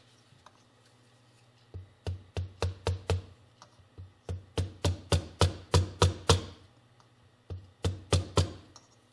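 A hammer tapping a steel socket extension used as a seal driver, about twenty short ringing taps in three quick runs, driving the clutch push rod oil seal into the Yamaha YL1's aluminium crankcase.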